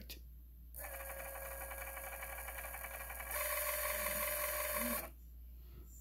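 T-Motor brushless drone motor spinning under power with no propeller, giving a steady buzzing whine. It steps up louder a little after three seconds in and stops about five seconds in. The sound is rough, the sign of bad bearings in a brand-new motor.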